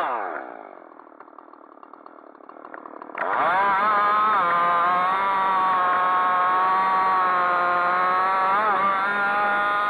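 Husqvarna 375 XP two-stroke chainsaw dropping from full throttle to a low idle for about two seconds, then revved sharply back up and running at full throttle as it cuts through spruce wood, with a brief wobble in pitch near the end.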